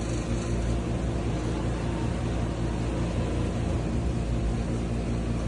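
A steady machine hum with an even hiss, like a small motor running.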